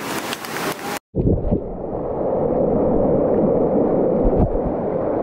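Whitewater rapids rushing for about a second, then a cut to the churning water heard from under the surface: a muffled, low rush with the hiss gone, broken by a few dull knocks.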